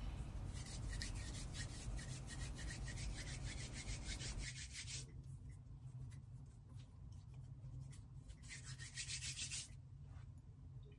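Faint, quick rubbing strokes of hands close to the microphone, in a run of about four seconds and then a shorter spell near the end.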